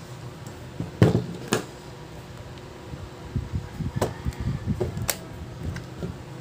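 A Lenovo IdeaPad laptop set down on a wooden desk with two sharp knocks half a second apart, then a run of light taps and clicks as its lid is opened and the body handled.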